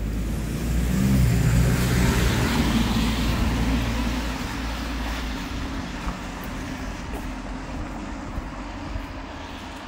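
A motor vehicle passing close by, its engine hum and tyre noise loudest about a second or two in, then fading away as it moves off.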